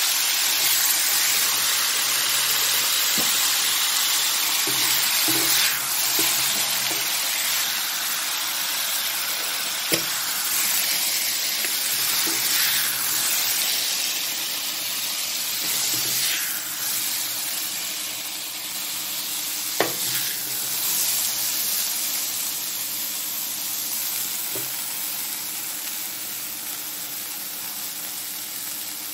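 Broccoli and pork belly stir-frying in oil in a wok: a steady sizzle with the spatula stirring and scraping, and a couple of sharp knocks of the spatula. The sizzle slowly fades toward the end.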